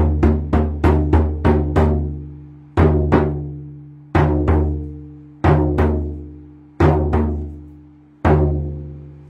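A drum with a deep ringing tone, beaten about three times a second, then slowing to pairs of beats more than a second apart, the last beat left to ring out: the drumming winding down at the close of a guided meditation.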